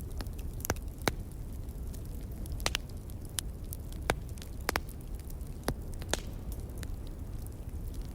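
Log fire crackling, with scattered sharp pops over a steady low rumble.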